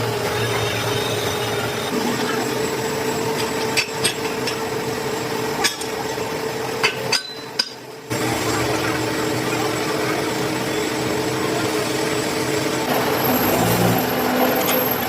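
Workshop machinery running with a steady hum, broken by a handful of sharp knocks between about four and eight seconds in. The running noise drops away for a moment just before eight seconds, then picks up again.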